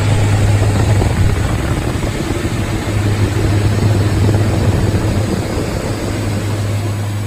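Diamond DA42 Twin Star's engine and propeller drone heard in flight: a steady deep hum over an even hiss.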